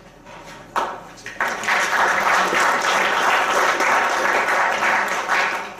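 Audience applauding. The clapping starts about a second in, quickly fills out into steady applause, and fades away near the end.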